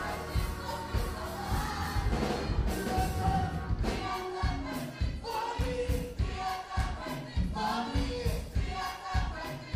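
Gospel music: a choir singing over a band with a steady drum beat.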